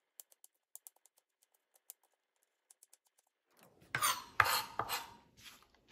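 Kitchen knife slicing fresh ginger into thin strips on a cutting board: a string of light clicks as the blade meets the board, then, about four seconds in, a louder scraping as the blade is drawn across the board to gather the cut strips.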